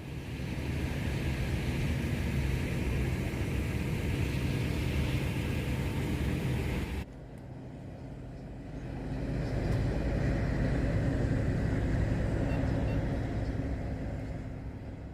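Steady low rumble with a hiss over it, like vehicle noise on a rainy day. It cuts off suddenly about seven seconds in, then builds up again.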